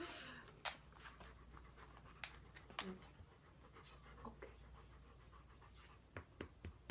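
Large white long-haired dog panting softly, after a brief rustle at the start; faint scattered clicks and light knocks throughout.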